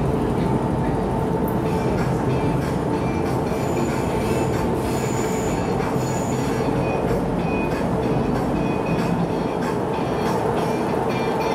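MTR M-train passing through the station without stopping: a steady rumble of wheels and running gear on the track, with brief high wheel squeals coming and going.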